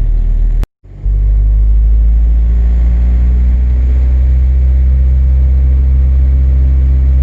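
Acura TSX's K24A2 four-cylinder engine running at a steady speed, a loud deep drone that holds one pitch. It drops out briefly under a second in, then comes straight back.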